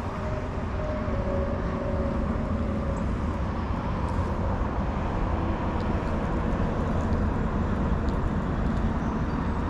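Steady low rumble of outdoor background noise with no distinct events, and a faint hum held for the first two or three seconds.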